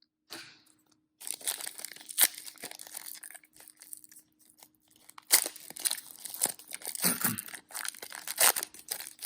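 Trading card pack wrapper being torn open and crinkled by hand: irregular crackling with sharp snaps, pausing briefly midway, then louder again.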